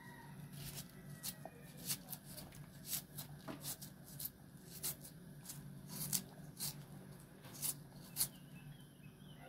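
Kitchen knife slicing through a raw onion held in the hand, a series of short, crisp cuts at an irregular pace, about one or two a second, over a steady low hum.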